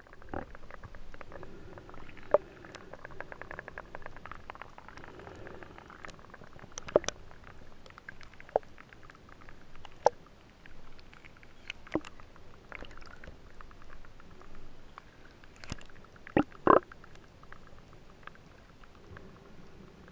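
Muffled underwater sound picked up by a camera in the water: a dull low wash with many scattered clicks and crackles, a quick run of clicks a few seconds in, and several sharper knocks, the loudest two close together about three-quarters of the way through.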